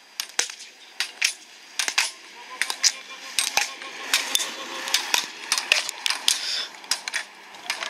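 Rapid, irregular sharp clacks and taps from an inline skater's slalom run: flexible plastic gate poles knocked aside by his arm guards, and ski pole tips striking the asphalt.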